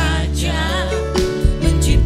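Live worship band playing a praise song: several vocalists singing held, wavering notes over electric bass and the rest of the band.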